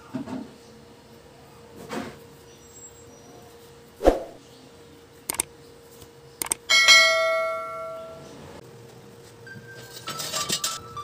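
Subscribe-button sound effect: a couple of mouse clicks, then a bell ding that rings out for about two seconds. A few knocks and a heavy thump come before it, and near the end steel bar stock clatters as it is laid on the metal frame.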